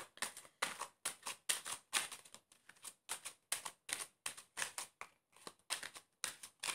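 Tarot cards being shuffled by hand: a quick run of short, dry card slaps and swishes, about three a second.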